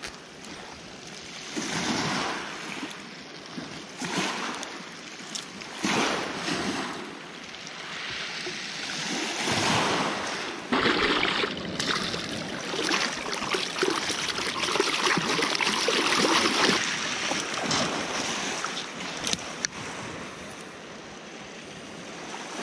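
Surf washing onto a pebble beach, swelling and falling back every few seconds, with a few sharp clicks and knocks on top.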